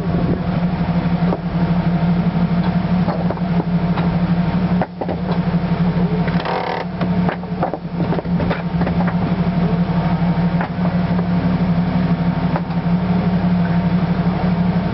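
Jeep XJ-based rock buggy's engine running steadily as it crawls over rocks, with scattered knocks and creaks from the chassis. The engine note dips briefly about five seconds in.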